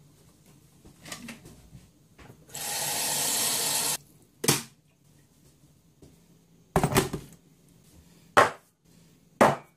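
Tap water running into an electric kettle for about a second and a half, then a few sharp knocks and clicks as the kettle is handled and set down on its base.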